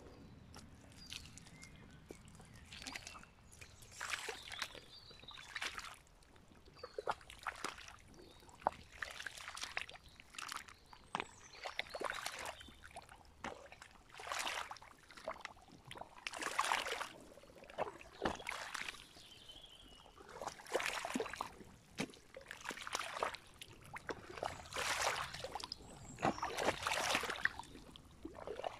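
Rubber wellington boots tramping through wet mud and shallow muddy puddles, with a squelch and slosh of water at each step, roughly one step a second.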